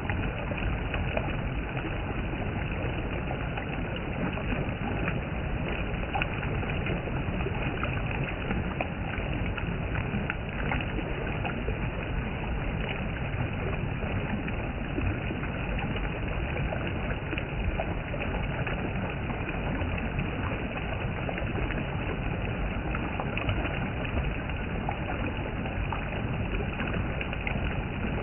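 Waterfall's falling water rushing in a steady, unbroken roar.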